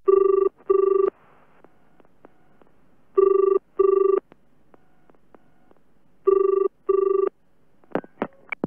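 Telephone ringing in the British double-ring pattern: three rings of two short tones each, about three seconds apart, then a few sharp clicks near the end.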